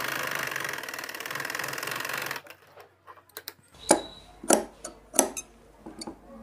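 Singer sewing machine stitching at speed with a fast, dense rattle, stopping after about two and a half seconds. After a short pause come several sharp snips of fabric shears, about two a second.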